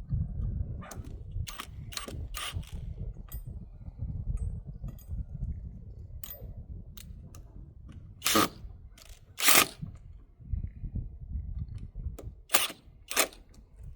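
Sharp knocks and clicks from working on a wooden door and its metal hardware to straighten it, about eight in all; the two loudest come about eight and a half and nine and a half seconds in. Under them runs a low rumble that fades near the end.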